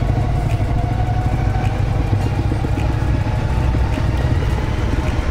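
Honda CRF250L's single-cylinder engine running steadily while the bike rides along.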